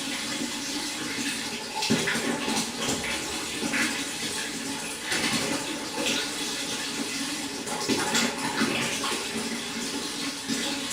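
Water running and splashing steadily into a pond, with irregular louder splashes about two, five and eight seconds in.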